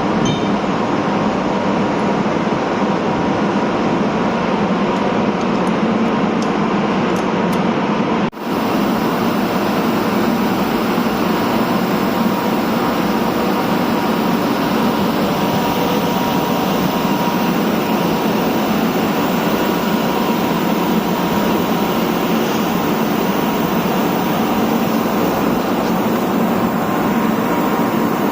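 Turbocharged diesel generator running steadily under power: a loud, even roar with a faint steady whine on top. The sound cuts out for an instant about eight seconds in, then carries on unchanged.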